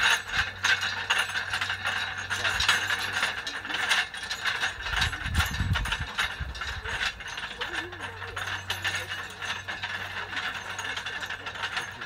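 Horse-drawn metal ring roller rolling over tilled soil, its rings rattling and clattering in a continuous dense run of clicks.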